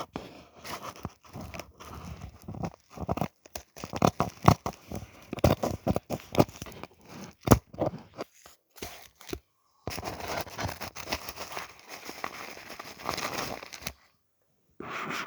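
A disposable toe warmer packet being cut and torn open: irregular crinkling, tearing and sharp snips of the packaging, then a steady rustle of about four seconds that stops abruptly.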